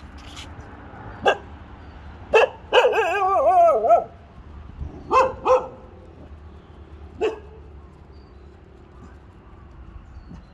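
A dog barking in single short barks, with a longer wavering, whining howl of over a second about three seconds in. Two quick barks follow around five seconds in, then one more a couple of seconds later.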